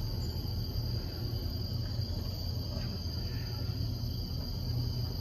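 Steady low hum inside a moving cable car cabin, with a thin, steady high-pitched whine over it.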